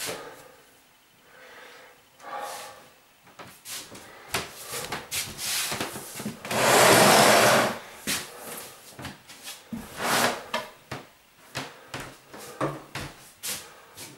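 Boxes and bags being handled and set down in a small room: scattered knocks, bumps and rubbing, with one loud noisy rush lasting about a second about halfway through.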